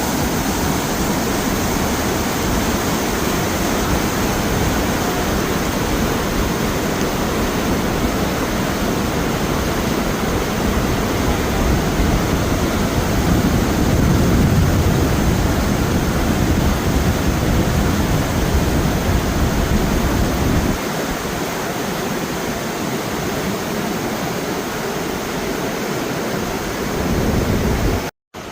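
Steady rush of Vernal Fall's water pouring over the falls. The deepest part of the sound thins out about two-thirds of the way in.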